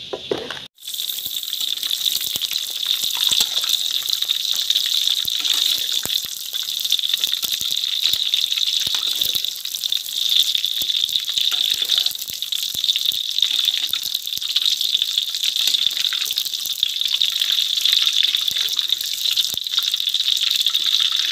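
Cubes of already-fried yellow tofu being refried in hot oil: a steady, loud sizzle full of fine crackling pops, starting just under a second in.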